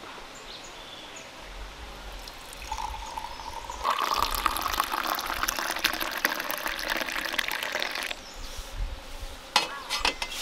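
Hot coffee being poured into a cup, the pouring tone rising in pitch as the cup fills, then stopping suddenly after about five seconds. Two or three light knocks follow near the end.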